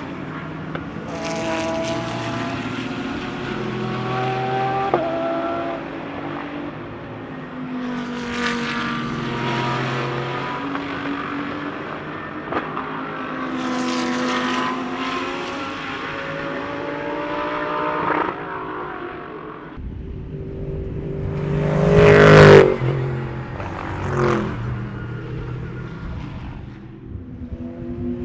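GT3 race car engines going past at speed in several passes, the pitch climbing and stepping up through gear changes. The loudest and closest pass comes about two-thirds of the way through.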